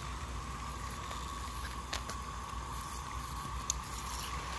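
Oscillating lawn sprinkler spraying water that patters steadily on the grass, with a couple of brief sharp clicks.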